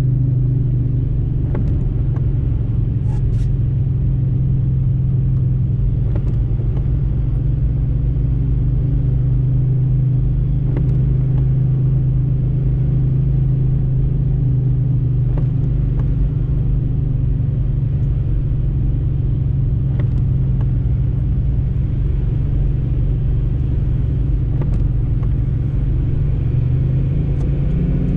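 A car driving at steady speed on a wet road, heard from inside the cabin: a steady low engine hum with tyre and road noise, and a few faint clicks scattered through.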